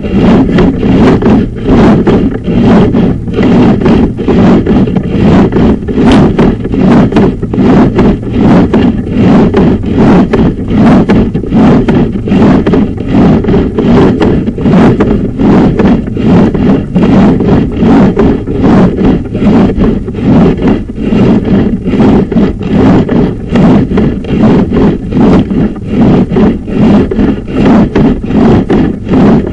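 Sewer inspection camera head and push cable scraping and rumbling along the inside of a sewer pipe as they are pushed down the line, in a quick, uneven pulsing rhythm.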